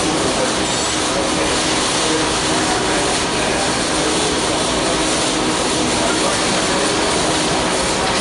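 Steady, loud machinery noise with a faint hum, from industrial equipment at an automated assembly station.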